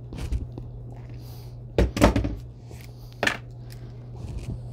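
Wire-stripping pliers cutting and pulling the plastic sheathing off a 14-2 electrical cable: a few crunchy snips, rips and handling knocks, loudest about two seconds in. A steady low hum sits underneath.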